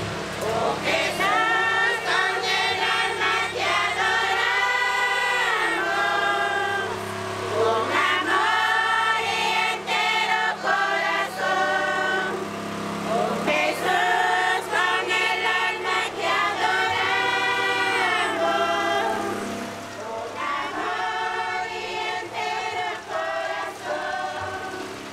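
Church congregation singing a hymn together from hymnals, in long phrases with short breaks between them.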